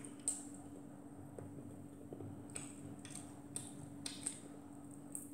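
Quiet eating sounds from fried fish eaten by hand: about six soft, brief smacks and clicks of chewing and mouth noise over a low, steady hum.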